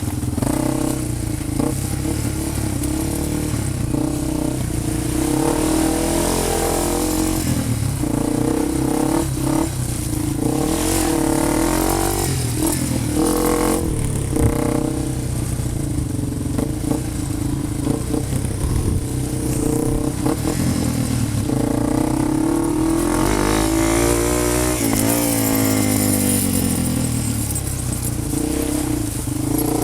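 A vehicle engine running continuously as it is driven over off-road ground, its pitch rising and falling repeatedly as the throttle is opened and eased off.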